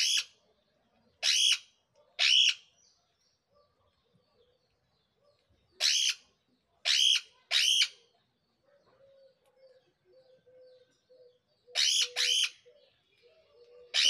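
Caged parakeets screeching: about eight short, sharp calls in groups of two or three, with pauses between the groups.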